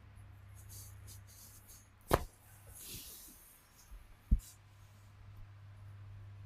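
Joints of the foot cracking under a manual chiropractic adjustment: a bright, sharp crack about two seconds in and a duller, lower pop about two seconds later, with hands rustling on skin between them.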